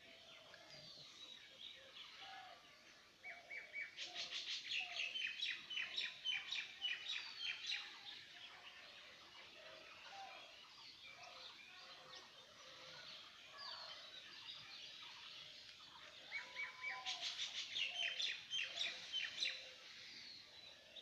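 A songbird singing two long, fast, jumbled phrases of high chirps and trills, about twelve seconds apart, with fainter bird calls in between.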